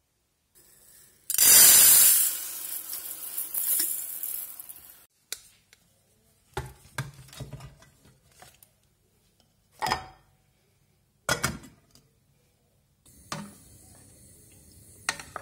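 Kitchen cooking sounds: a few seconds of loud rushing noise about a second in, then scattered knocks and clinks of pots, lids and utensils. Near the end a wooden spoon works in a steel pot of beans and sausage over a faint steady hiss.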